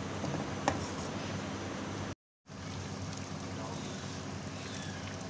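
Steady hiss and low hum of a pan of curry gravy cooking on the stove, with one sharp clink of a metal slotted spoon against the pan less than a second in. The sound drops out for a moment a little after two seconds.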